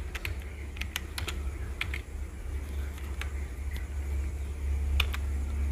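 Keyboard keys clicking in irregular single presses as a number is typed in digit by digit, over a low steady hum.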